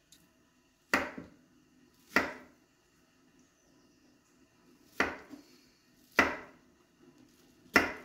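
Kitchen knife chopping on a wooden cutting board: five single sharp chops, spaced one to three seconds apart.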